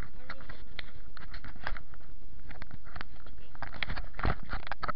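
Handling noise from fingers gripping and rubbing a phone: irregular clicks and scrapes over a steady hiss, thickest near the end.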